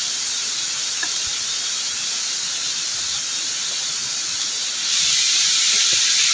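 Steady hiss of a waterfall's rushing water, growing louder about five seconds in.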